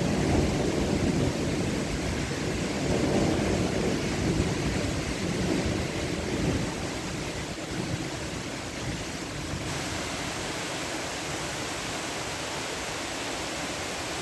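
Heavy rain and strong gusts of a thunderstorm downburst, the wind rumbling on the microphone. The gusts ease after about seven seconds, leaving a steadier rush of rain and wind.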